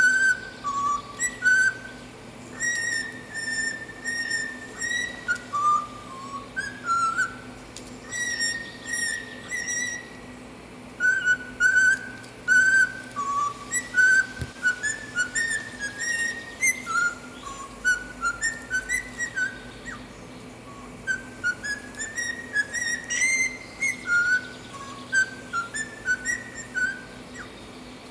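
Cockatiel whistling a tune: a run of short, clear notes stepping up and down in pitch, in phrases with brief pauses between them.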